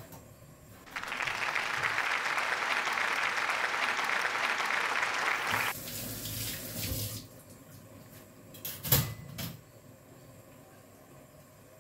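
Kitchen sink tap running steadily for about five seconds, then a softer, uneven splashing of water before it stops. A few sharp knocks follow near the end.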